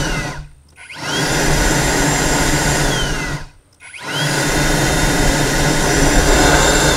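Leaf blower run in blasts: it stops about half a second in, starts again with a rising whine, runs for a couple of seconds, drops out briefly, then starts once more and keeps blowing.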